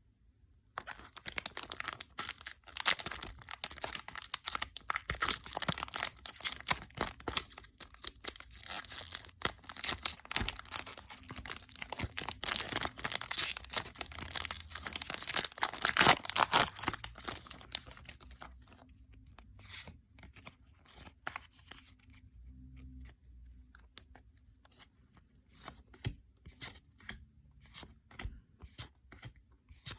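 Foil wrapper of a Pokémon booster pack being torn open and crinkled for about eighteen seconds, then quieter handling of the cards, ending in a run of light, quick flicks as the cards are slid one behind another.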